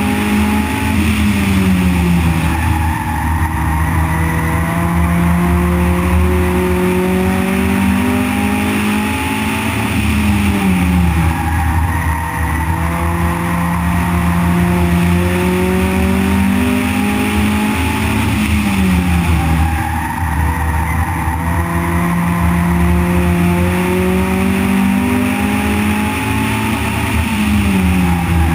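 Onboard sound of an Outlaw-class stock car's engine at racing speed on a short paved oval. The engine pitch drops sharply about every nine seconds as the driver lifts for a turn, then climbs again as the car accelerates down the straight, three laps in a row, under steady wind and road noise.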